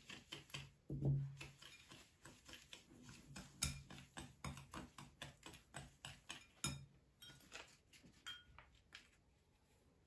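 Wire whisk beating an egg and sugar mixture in a ceramic bowl, clicking against the bowl about three to four times a second, with a louder knock about a second in. The clicking fades out near the end.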